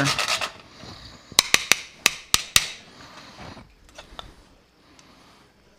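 A quick run of about six sharp metallic clinks, a utensil knocking against a metal frying pan as shrimp are lifted out of it, followed by a few fainter clicks.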